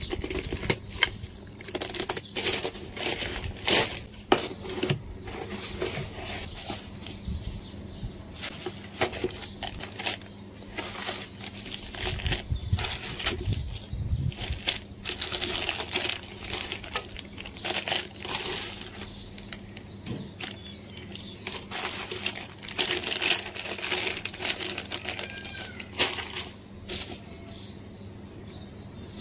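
Plastic packaging being handled: a courier mailer bag, zip-lock bags and bubble wrap rustling and crinkling, with frequent irregular sharp clicks and taps.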